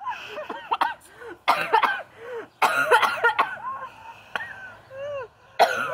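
A woman coughing and spluttering in several loud fits after choking on a mouthful of water.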